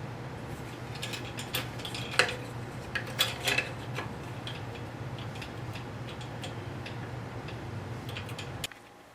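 Scroll saw running with a steady low hum while its blade cuts through quarter-inch oak, with scattered sharp clicks and ticks; the saw shuts off suddenly near the end.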